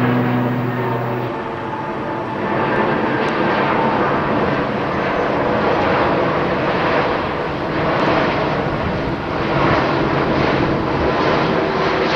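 Airbus A330 airliner passing low overhead on approach with its gear down: a steady rush of jet-engine noise that swells and ebbs a little. Background music tones stop about a second in.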